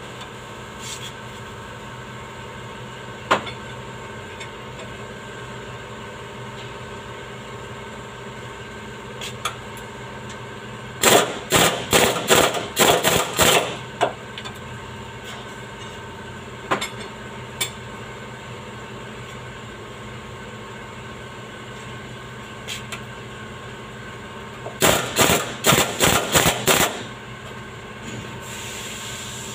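Pneumatic impact wrench run in two sets of short rattling bursts on bolts under a Toyota Land Cruiser, the first set about eleven seconds in and the second near the end, over a steady shop hum.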